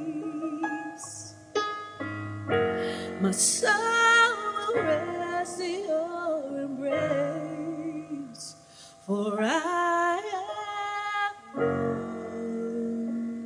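A woman singing a slow worship song to piano, in held notes with vibrato and sliding vocal runs, without clear words, over sustained chords.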